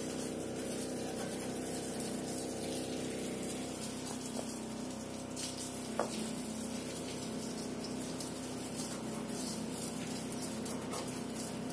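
A thin jet of water from a hose sprays steadily onto a motorcycle, rinsing the mud off it, over a steady low hum.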